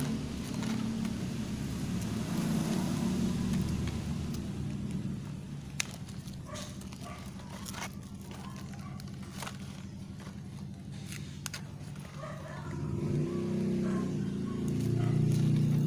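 A motor vehicle's engine running, easing off through the middle and growing louder again near the end. A few sharp clicks of scissors snip the plastic wrap around an air-layered plant's root ball.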